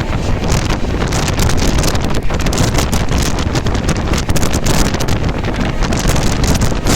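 Wind buffeting the microphone over a loud, steady rushing noise, with constant irregular gusty thumps.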